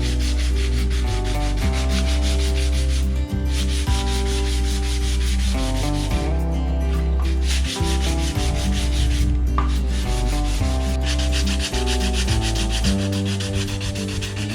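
Sandpaper rubbed back and forth over wood in quick repeated strokes, with a few short pauses, over background music with a steady bass line.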